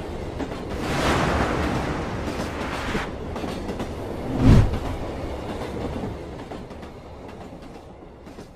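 Train sound from a channel intro: a passing train runs steadily, swells about a second in, gives one deep thump about four and a half seconds in, then fades out gradually.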